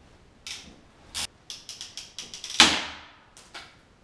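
Long-handled PEX clamp tool clicking as it is squeezed onto a fitting, then one sharp, loud snap about two and a half seconds in: the PEX clamp breaking right off.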